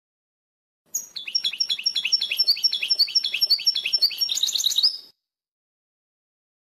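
European goldfinch singing a wdaniya-style song phrase from a recording: a rapid run of high chirped notes, about four a second, ending in a quicker trill. It starts about a second in and cuts off sharply about five seconds in.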